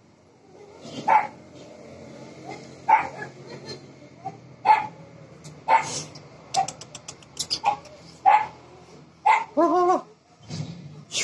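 Dog barking in single sharp barks, roughly one a second, with a longer wavering cry near the end.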